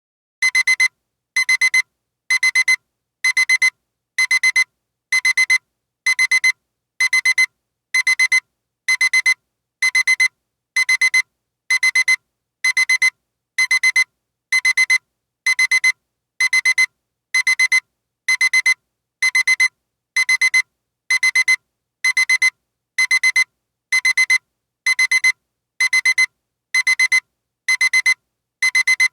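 Alarm clock beeping: short, high-pitched beeps repeating evenly, just under twice a second.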